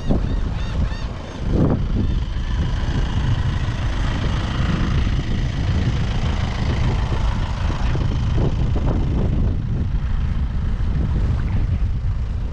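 Wind buffeting the microphone with a steady low rumble, and waves washing on the beach as a hiss above it. In the first second a bird gives a quick run of short, repeated calls.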